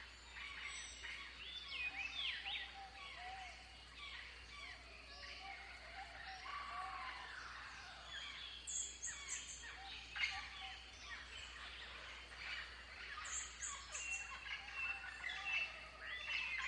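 A chorus of birds chirping and calling, many short rising and falling notes overlapping. Twice, about halfway through and again later, a quick run of very high ticks.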